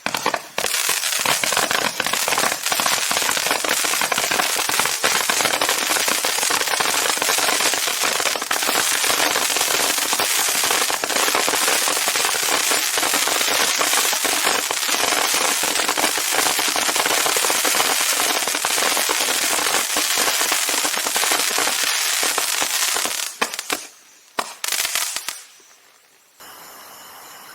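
Multi-shot fireworks cake firing, a dense, unbroken crackle of reports for about twenty seconds, then a few last scattered pops before it stops. A fainter steady hiss follows near the end.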